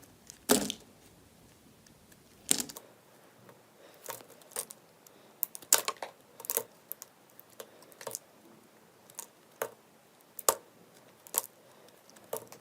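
Slime being worked, making irregular sharp clicks and pops, about a dozen of them.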